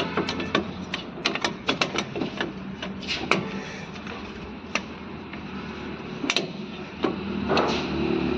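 Irregular metallic clicks and clinks of a car's rear drum-brake parts being worked free by hand as a brake shoe is taken off, over a steady low hum.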